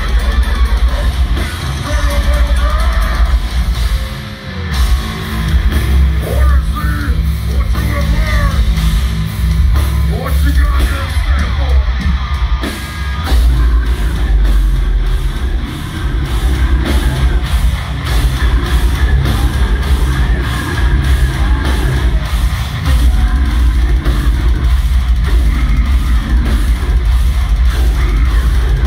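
Deathcore band playing live, recorded from within the crowd: distorted guitars, heavy bass and drums with screamed vocals. From about halfway the drums settle into a fast, even beat.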